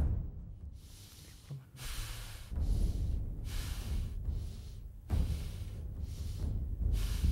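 A person breathing heavily, with hissy gasps about once a second, over a low, rumbling drone of suspense music.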